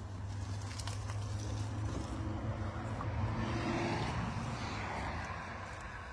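A motor vehicle passing by: a steady low engine hum with a rushing noise that swells to a peak about four seconds in and then fades.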